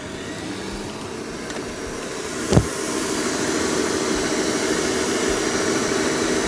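Electric stand mixer running, its beater whisking butter, sugar and cinnamon with eggs for a biscuit dough. There is a single sharp tap about two and a half seconds in, after which the mixer runs a little louder.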